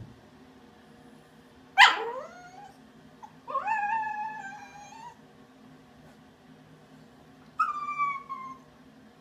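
Cockapoo puppy whining three times. First a sharp yelp that drops in pitch about two seconds in, then a longer, level whine, then a short falling whine near the end. This is the puppy's protest at going down the stairs.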